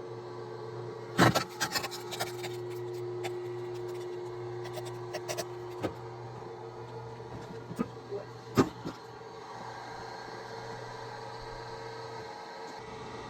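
A machine runs with a steady hum while sharp knocks sound over it: a quick cluster of knocks about a second in, smaller scattered ones, and one loud single knock about two-thirds of the way through.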